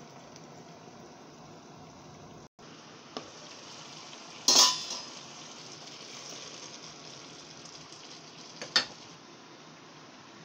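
Vegetables and sauce simmering in a metal pan, a steady hiss, with two sharp clatters of dishware against the pan, the louder about four and a half seconds in and another near the end.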